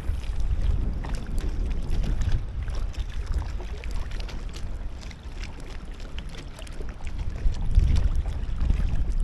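Wind buffeting the microphone: an uneven low rumble that swells and eases, with scattered faint clicks over it.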